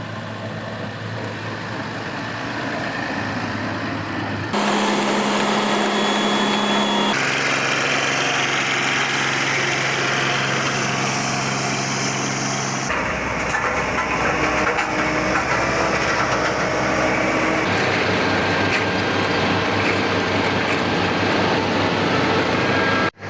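Construction machine engines running steadily, in several clips cut together, so the engine note changes abruptly every few seconds.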